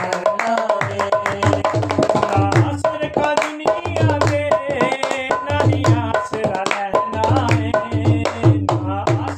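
A man singing a Punjabi devotional worship song, accompanied by a dholak drum played with the hands in a steady rhythm of deep bass strokes and sharper slaps, with hand claps.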